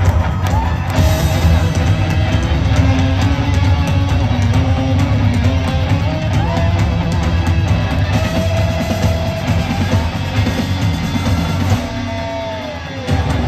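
Live heavy rock band playing loud, with distorted electric guitar and drum kit, and a few sliding high notes over the dense band sound.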